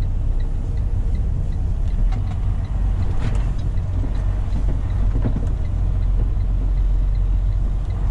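Truck engine running with a steady low rumble inside the cab as the truck makes a turn, with a light, evenly spaced ticking from the turn signal.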